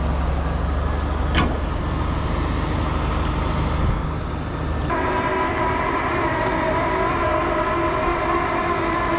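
Tractor engine running steadily, with a single sharp click about a second and a half in. About five seconds in, a steady whine of several pitches sets in abruptly and holds.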